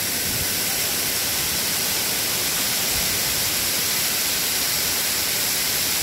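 Waterfall pouring down a rock face close by: a steady rush of falling water.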